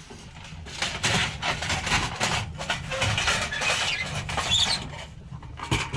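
Irregular clattering and knocking of scrap items being shifted and handled, a quick run of short knocks that eases off near the end.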